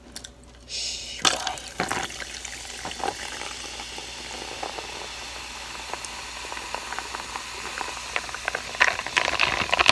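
Ginger ale poured from a can into a plastic cup of ice, fizzing and crackling steadily as the carbonation hits the ice, with small clicks of ice cracking and shifting.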